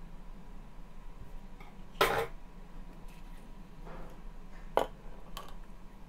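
Hands handling and unwrapping a small clear plastic cup from its thin foam packing sheet: a few short rustles and light taps, the loudest about two seconds in and two quicker ones near the end.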